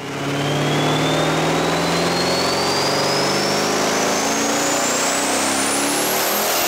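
Twin-turbocharged three-valve modular V8 of a 2008 Ford Mustang running under load on a chassis dyno, with a high whine that climbs steadily in pitch.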